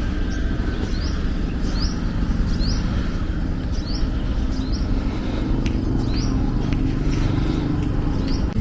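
Steady rumble of road traffic, with a bird repeating a short, upward-sweeping chirp about once a second.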